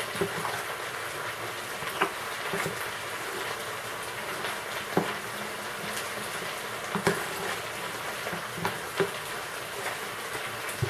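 Steady sizzle of potatoes frying in a pan. Over it, soft squishing of a hand kneading minced chicken with flour in an enamel bowl, with a few faint knocks.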